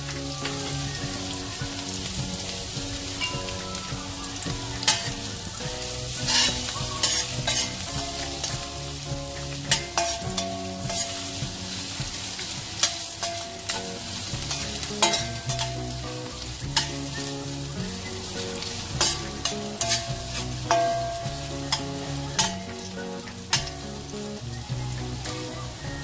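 Chopped spices (garlic, shallot, ginger, chili) sizzling in hot oil in a pan while being stir-fried. A steady hiss of frying runs throughout, broken by many sharp clicks and scrapes of the spatula against the pan.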